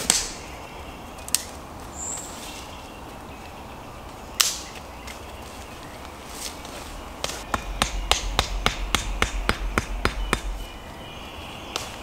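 Sharp knocks of something being struck: a few single knocks, then from about seven seconds in a quick run of about fifteen knocks at four or five a second, each with a low thud.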